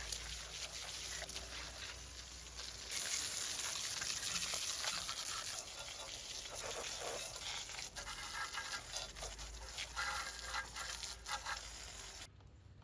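Garden hose spraying water over a Dauntless V6 engine to rinse off the soaked-in degreaser: a steady hiss with pattering on the metal. It gets louder about three seconds in and cuts off suddenly near the end.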